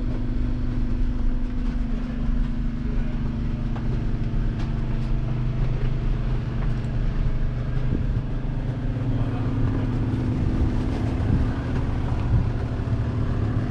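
New Holland T7.315's 6.7-litre six-cylinder diesel engine running steadily, heard from inside the tractor cab as an even low hum.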